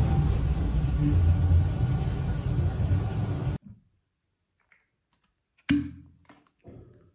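Blender running on frozen berries, banana and nuts with oat milk, making a smoothie; its motor cuts off abruptly about three and a half seconds in. A few light knocks follow near the end.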